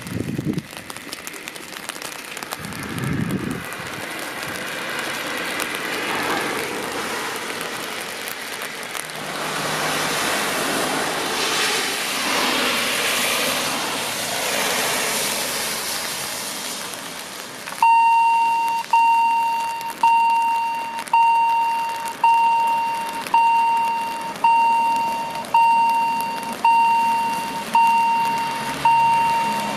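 Hiss of rain and traffic on a wet road, swelling for a few seconds in the middle. About two-thirds of the way in, a railway level crossing's warning bell starts ringing, a ding about every second that dies away each time, as the crossing goes back to its closed, warning state.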